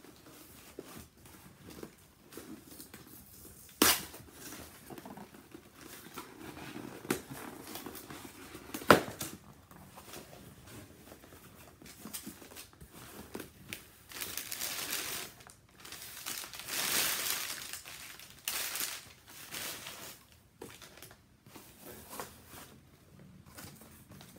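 A cardboard shipping box being opened by hand: flaps scraping and packing paper crinkling and rustling, with a few sharp knocks, the loudest about 9 seconds in.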